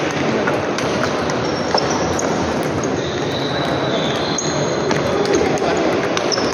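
Table tennis balls clicking against bats and tables in an irregular rally rhythm, over the din of a busy hall with background voices.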